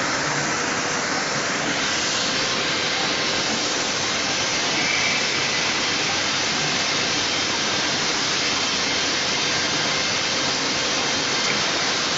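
Point-to-point CNC drilling and milling machine working a wooden panel: a steady, loud hiss of the spindle and dust extraction as the head travels along the board.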